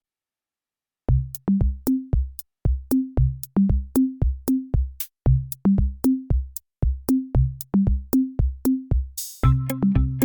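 Background electronic music: after about a second of silence a drum-machine beat starts, low bass-drum thumps with sharp clicks on top. Near the end a crash comes in and fuller synth and bass notes join the beat.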